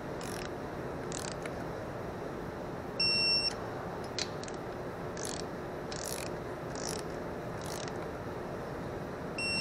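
Snap-on electronic torque wrench beeping as it reaches its set torque of 7 foot-pounds on a 6 mm carburetor bolt: two short high beeps, about six seconds apart. Faint ratchet clicks come between them.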